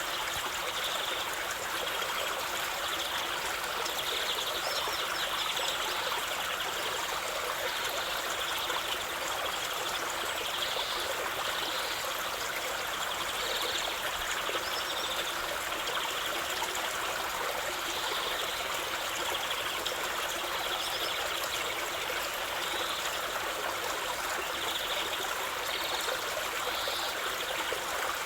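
Waterfall, a steady rush of falling and splashing water, with short bird calls now and then.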